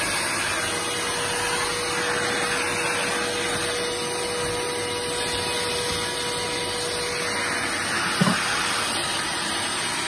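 Hitachi vacuum cleaner running steadily, its floor nozzle pushed over carpet, drawing suction through the repaired hose: a steady rush of air with a steady whine. One short knock about eight seconds in.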